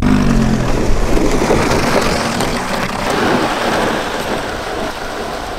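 Loud, steady rushing of wind and road noise as an inflatable ring is towed fast along asphalt behind a Lamborghini sports car. A low engine note from the car sounds in the first half second.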